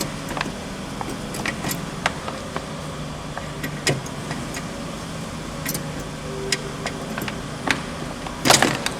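Scattered small clicks and light plastic rattling of a headlight bulb's wiring connector and retaining clip being worked loose by hand, with a louder burst of clicking and scraping near the end.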